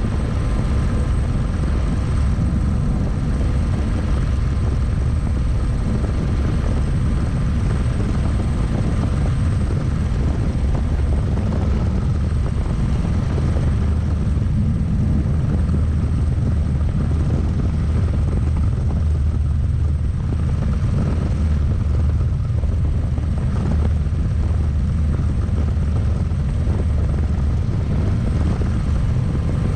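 A single-seat turbine-powered experimental helicopter in forward flight, heard from inside the cabin: a steady, even rotor and engine rumble with a few thin steady high tones above it.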